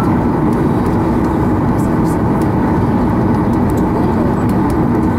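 Inside the cabin of a Boeing 737-800 taxiing: the steady low rumble of its CFM56-7B engines at taxi power.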